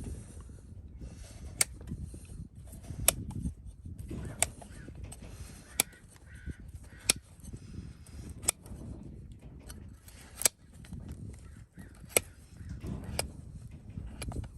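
Farrier's tools working on a hoof: sharp clicks or taps, roughly one every second and a half, over a low rumbling background.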